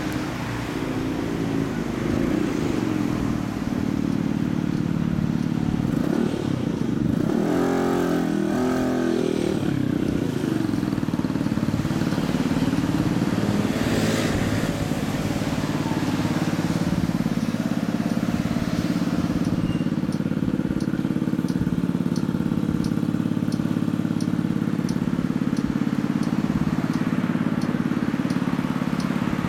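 Suzuki Katana GSX1100S air-cooled inline four idling through a hand-bent steel 4-into-1 exhaust with a straight-through aluminium silencer. The throttle is blipped so that the engine revs up and drops back about eight seconds in, with a smaller blip about halfway. A light, regular ticking runs over the idle near the end.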